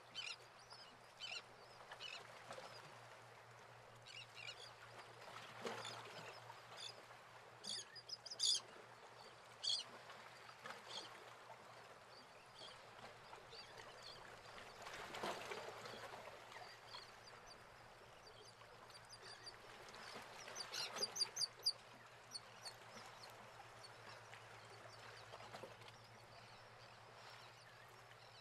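Quiet open-air ambience with scattered short bird calls over a faint steady low hum. The calls come in two brief clusters, the second a quick run of several calls.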